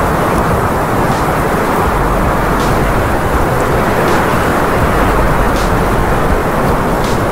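Snowstorm wind blowing hard across the microphone: a loud, steady rush with a low rumble. A faint crunch comes about every second and a half, footsteps in fresh snow.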